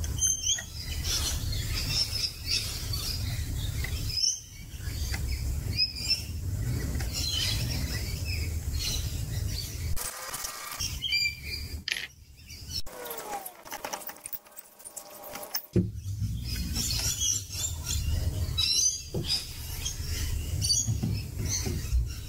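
Rainbow lorikeets and galahs chirping and calling repeatedly, over a steady low rumble that drops out for a few seconds around the middle.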